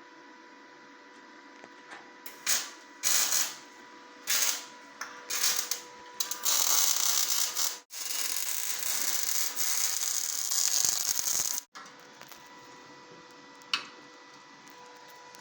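A power tool cutting into the steel truck frame to remove a damaged section: a few short bursts of cutting, then a long, loud, hissing cut that stops abruptly.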